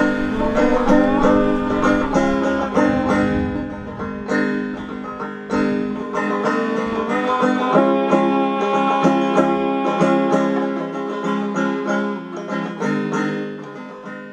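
Banjo music: a run of quick plucked notes over steady held tones.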